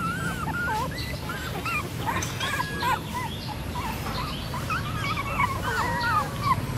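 Several very young puppies whimpering and whining together, a stream of short, overlapping squeaky cries that rise and fall in pitch.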